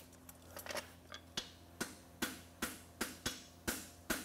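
Hand hammer striking a hot steel horseshoe on an anvil: a steady run of sharp blows, about two and a half a second, starting about a second and a half in. The shoe is being flattened after the forge scale has been brushed off.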